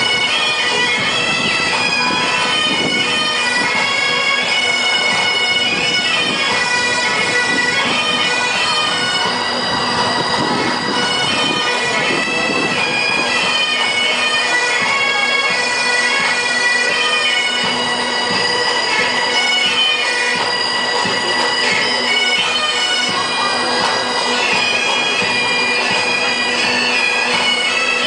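A pipe band's bagpipes playing a tune over their steady drones, with no break.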